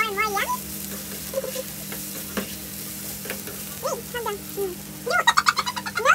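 Food sizzling in a nonstick wok while it is stirred and scraped with a metal spatula. About five seconds in, a loud, high, wavering vocal call cuts in over the frying.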